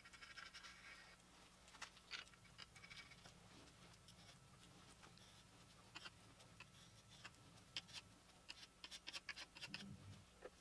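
Faint scratching of a hand scraper on the 5.3 LS engine block's oil-pan gasket surface, in short irregular strokes with light clicks, cleaning off the old gasket before a new gasket and pan go on.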